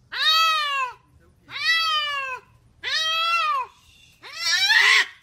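A cat meowing four times in long, drawn-out calls, each rising then falling in pitch; the last one is rougher.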